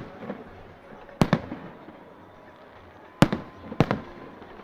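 Fireworks bursting overhead: three sharp bangs, about a second in, then two close together near three seconds in. Each bang is a doubled crack with a short echo after it.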